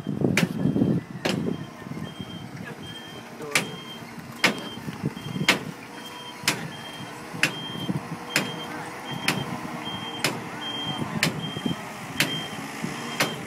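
A truck's reversing alarm beeping steadily, a short high beep about every three-quarters of a second, over the low rumble of its engine. A sharp click also sounds about once a second.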